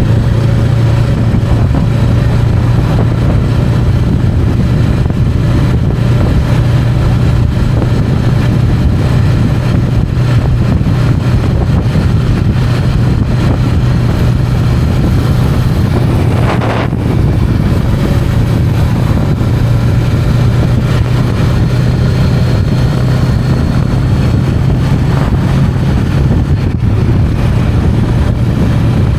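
Honda Rebel 500's parallel-twin engine running at a steady cruise, with a constant engine note throughout. Wind noise on the helmet microphone.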